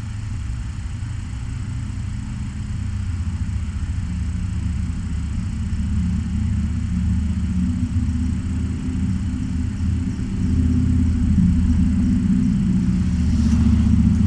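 Domestic cat purring loudly, close to the microphone: a low, steady, fast-pulsing rumble that slowly grows louder.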